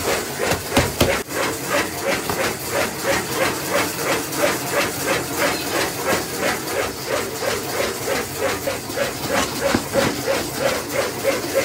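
Machine running with a steady rhythmic beat of about three strokes a second over a constant hiss.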